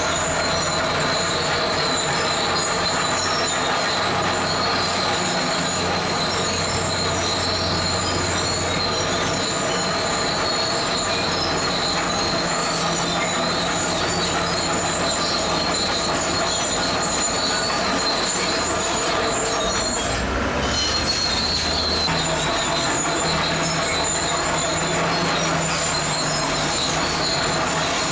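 Zoomlion crawler bulldozer working, its diesel engine running steadily under a continuous high metallic squeal from its steel tracks.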